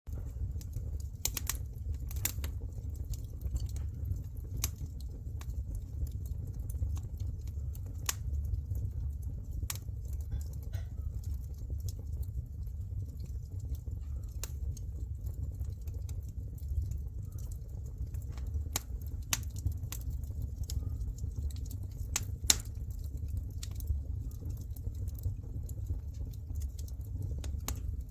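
Firewood burning in a fireplace: irregular sharp crackles and pops over a steady low rumble.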